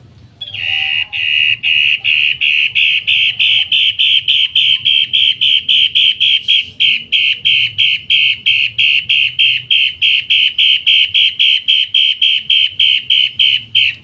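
Caged cendet matahari (cica matahari, the spotted crocias) calling a long, fast series of loud, harsh notes, about three to four a second without a break, starting about half a second in.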